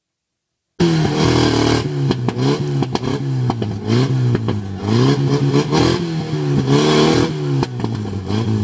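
Off-road vehicle engine revving hard, its pitch rising and falling over and over about once a second, with knocks and clatter from the vehicle working over rough ground. It starts about a second in.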